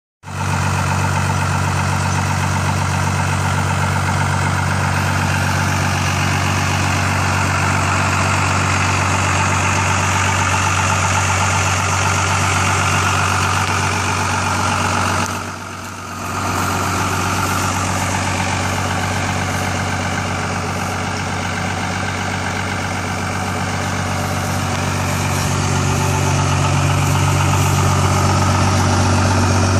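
1991 Dodge W250's intercooled Cummins 5.9-litre inline-six turbo diesel idling steadily, heard through a 5-inch straight exhaust stack. The sound dips briefly about halfway through and grows a little louder near the end.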